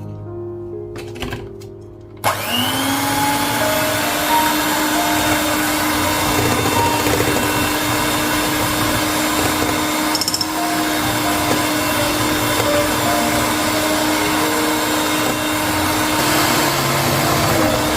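A household appliance's electric motor switches on about two seconds in, its pitch rising as it spins up, runs steadily with a loud rushing noise, then winds down near the end.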